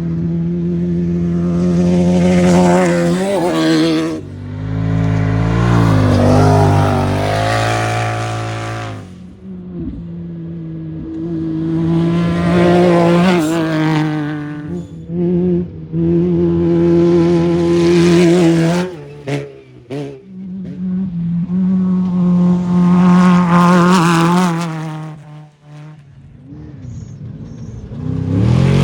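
Off-road race vehicles at full throttle, passing one after another: about five loud engine passes, each rising and falling as the engines rev up through the gears.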